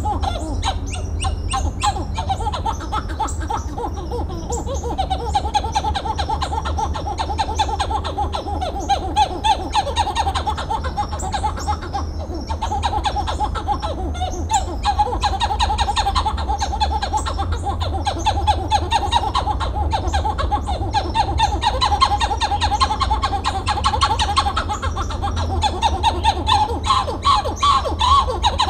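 Titi monkey (Callicebus) singing its long-range song: a long series of rapid pulsed notes that runs on steadily and rises slightly in pitch near the end.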